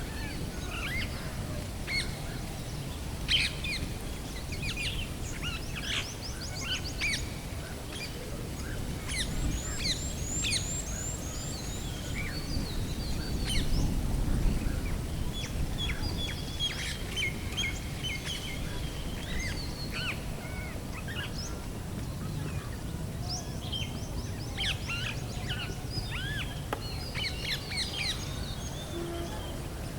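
Many small birds chirping and calling, with quick trilled notes now and then, over a low steady rumble.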